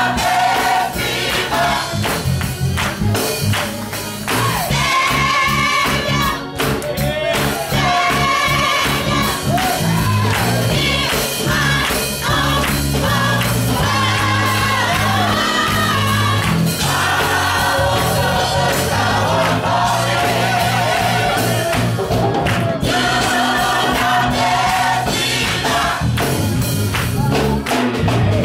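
Gospel choir singing together over a bass line and a steady beat.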